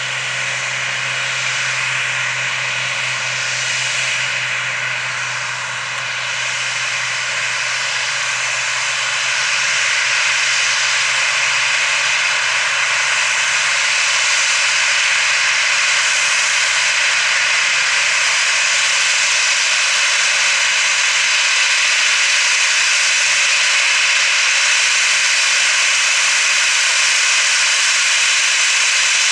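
Boeing 737-700 jet engines (CFM56-7B turbofans) running at high takeoff power: a steady jet noise with a high fan whine, growing louder about ten seconds in and then holding steady.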